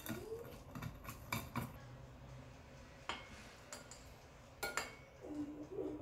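A metal spoon scraping and clinking against a glass bowl while scooping out baked French toast, with several sharp clinks spread through.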